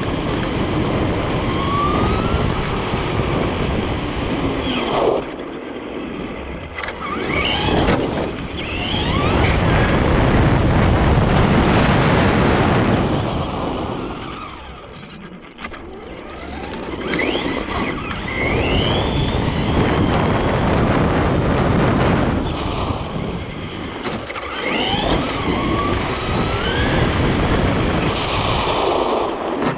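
Traxxas RC truck driving fast on asphalt, heard from a camera mounted on it: a steady rumble of tyre and wind noise, with the motor's whine rising in pitch again and again as the throttle is applied. The noise drops for a moment near the middle as the truck slows, then picks up again.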